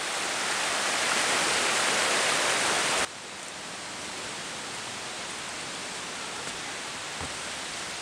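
Shallow mountain river rushing over rocks, a steady rushing noise; about three seconds in it cuts off abruptly to a quieter, steady rush.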